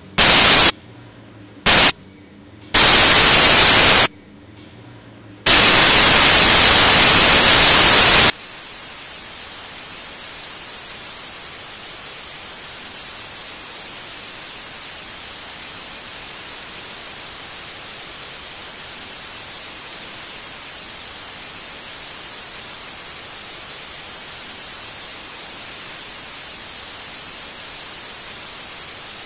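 Television static: four very loud bursts of white-noise hiss in the first eight seconds, the last about three seconds long, then a steady, quieter static hiss from a blank, untuned TV.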